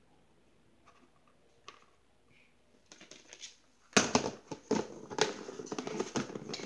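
A kitchen knife cutting fruit on a plastic cutting board, faint with a few small taps. About four seconds in, a sudden loud clack as the knife is put down on the board, followed by a run of clattering and rustling handling noises.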